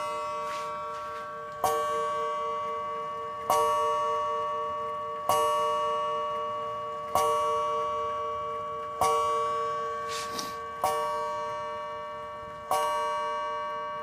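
Seth Thomas 89AL mantel clock striking the hour at ten o'clock. Single deep strikes come about every two seconds, each ringing out and fading before the next.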